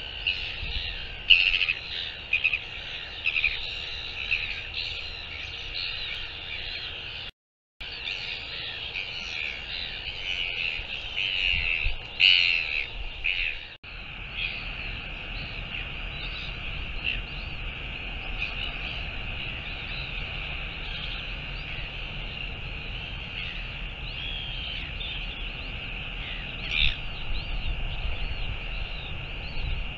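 Outdoor chorus of small birds: many short chirps and trills, densest in the first half, over a steady high-pitched drone. There is a brief silent gap about seven seconds in, and after a break about fourteen seconds in the calls thin out over a low rumble.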